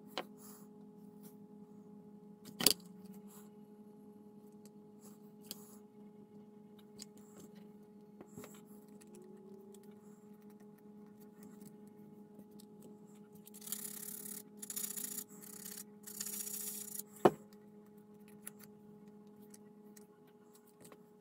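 Hands fitting and pressing thin strips onto a scale-model hull: faint rubbing and scraping, with a stronger rubbing stretch a little past the middle and two sharp clicks, one early and one later. A steady low hum runs underneath.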